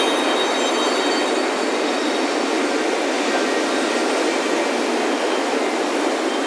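Ocean surf washing steadily onto a beach, with wind chimes ringing faintly in the first second or so.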